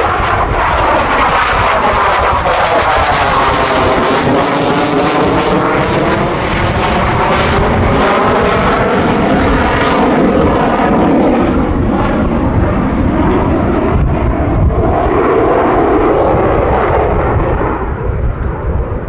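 Loud, continuous jet noise from the twin Eurojet EJ200 turbofans of an RAF Eurofighter Typhoon flying past during a display, its tone sweeping down and back up as it passes, easing slightly near the end.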